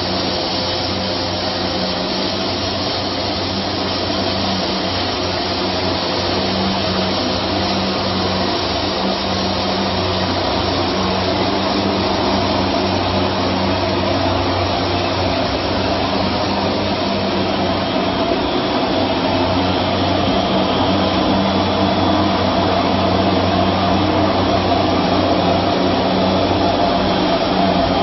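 Aluminium alloy rod rolling and wire drawing machine running: a steady mechanical drone with a low hum, growing slightly louder toward the end.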